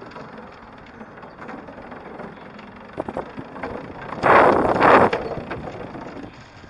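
Riding noise of a SoloWheel Glide3 (InMotion V8) electric unicycle rolling along a boardwalk and path: a steady rush of wind and tyre noise on the microphone, with a few sharp clicks about three seconds in. A louder rushing noise lasts about a second just past the four-second mark.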